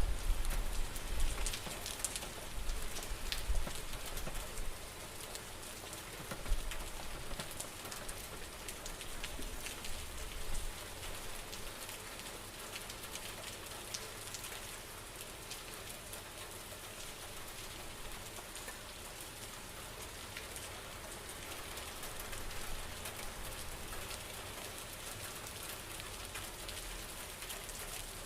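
Steady rain falling, an even hiss with scattered individual drops ticking through it. Low rumbling gusts swell and fade over the first ten seconds or so before the rain settles to an even level.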